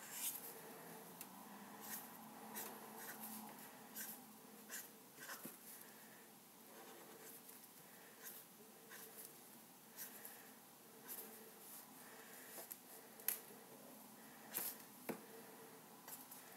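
Felt-tip marker drawing on sketchbook paper: faint, short, irregular scratchy strokes and taps of the nib as small marks are inked in.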